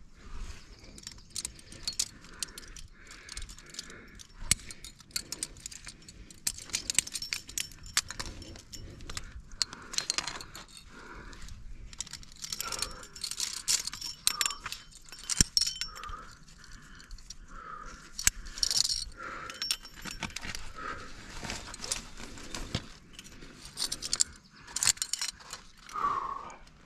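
Metal climbing gear on a harness, carabiners and protection, jingling and clinking irregularly as the climber moves up the rock.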